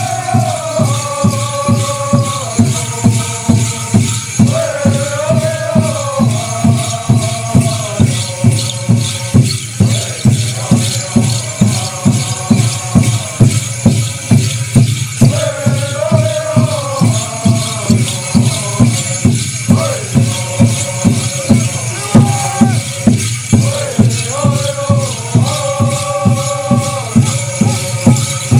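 Chorus of singers chanting a dance song over a steady beat of hand drums, with rattles shaking along with the beat. The singing comes in phrases with short breaks between them while the drumming keeps going.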